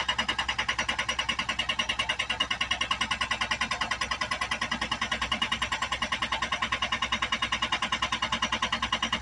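Small breaker attachment on an excavator hammering steadily, about ten blows a second.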